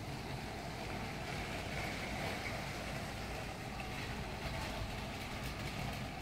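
Battery-powered LEGO train modelled on a Toronto Rocket subway train, running steadily on plastic LEGO track, its small electric motor whirring and its wheels rolling.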